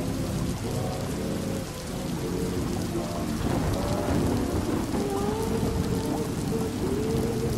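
Steady rain against windows with a low rumble of thunder. Muffled, wavering pitched sounds run underneath, strongest in the second half.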